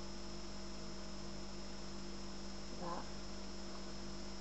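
Steady electrical hum, with several unchanging tones and a faint high whine held throughout.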